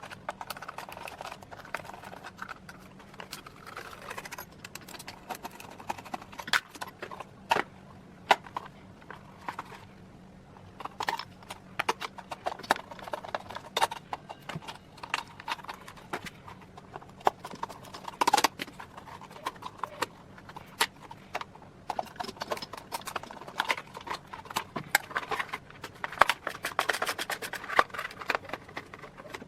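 Irregular clicks, taps and knocks of hand tools and plastic and metal parts being handled as a coffee machine is taken apart, with quieter scraping and handling between the knocks.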